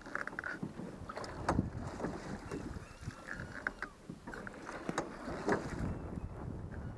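Canoe being paddled on open water: paddle strokes swishing and dripping, with scattered short knocks and clicks throughout.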